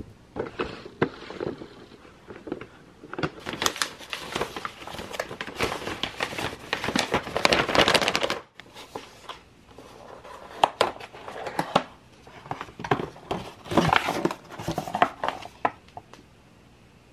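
A paper mailer envelope being torn and crinkled open, loudest for about five seconds near the middle, as a cardboard box is pulled out of it. Then the box lid is opened, with lighter rustling and taps that stop shortly before the end.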